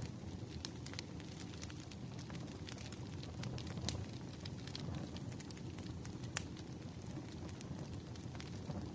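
Wood fire burning: a steady low rumble of flames with irregular crackles and pops from the burning logs, two sharper pops standing out about four and six and a half seconds in.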